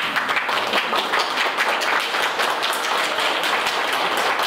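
A group applauding: many hands clapping densely and steadily.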